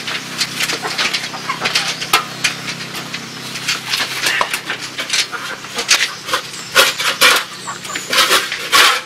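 Flat metal shovel scraping and knocking on a concrete floor in many short, irregular strokes, scraping up dried chicken manure.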